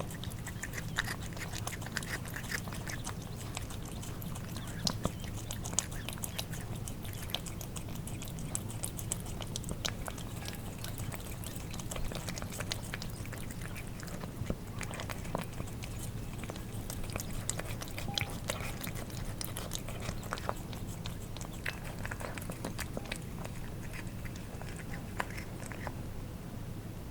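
Cats eating wet cat food: irregular wet smacking, lapping and chewing clicks from their mouths and tongues, over a steady low hum.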